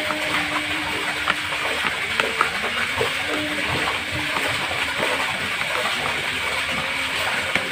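Silicone spatula scraping, pressing and smearing a damp carp bait paste against a plastic tray, giving irregular soft clicks and scrapes over a steady background hiss.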